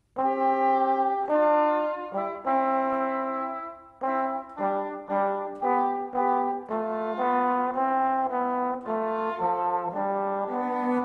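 Background music: a brass melody played in distinct held notes, starting suddenly after silence.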